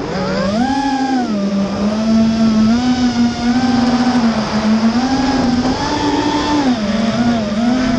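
Racing drone's electric motors whining, the pitch climbing in the first second and then wavering up and down as the throttle changes.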